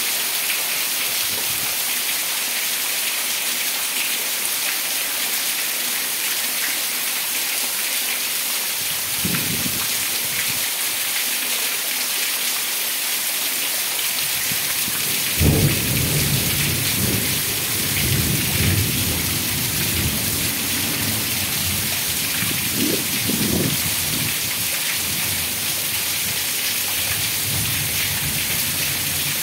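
Heavy rain falling steadily, with water pouring off a roof edge. About halfway through, thunder breaks out suddenly and rumbles on in swells for several seconds, after a fainter rumble earlier.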